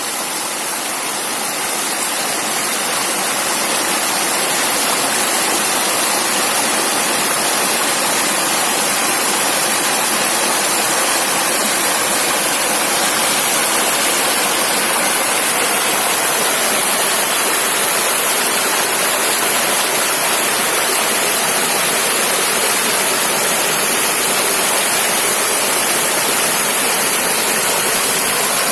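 A small river rushing over stones: a steady, unbroken water noise with a strong hiss.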